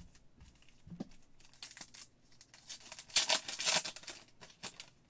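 Trading cards being handled, with soft clicks as they are shuffled. About three seconds in comes a louder burst of crinkling, a card pack's foil wrapper being torn and crumpled.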